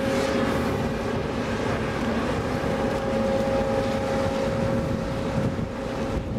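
Steady machinery drone with a constant whine, from a ship's deck crane running as it hoists a railcar. Wind buffets the microphone.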